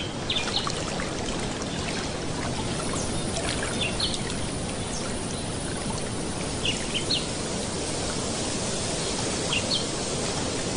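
Shallow water trickling and lapping steadily, with short high bird chirps every second or two.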